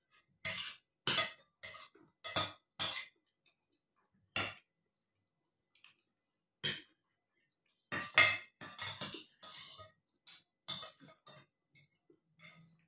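Metal cutlery clinking against a plate while eating. The short, sharp clinks come irregularly, with gaps of a second or two and a busy cluster about eight to nine and a half seconds in.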